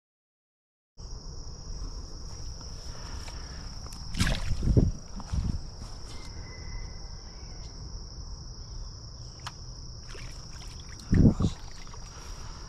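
A steady, high-pitched insect trill that starts after about a second of silence. Louder rustling bumps come about four to five seconds in and again near the end.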